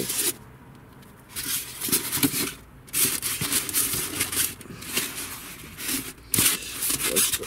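Irregular rustling and scraping in short bursts with brief pauses, the sound of things being handled.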